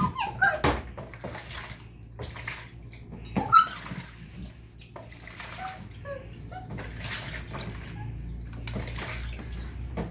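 Hands sloshing and rubbing pieces of salmon and shrimp in a plastic basin of water in a steel sink, with irregular splashes and knocks against the basin, the sharpest about three and a half seconds in.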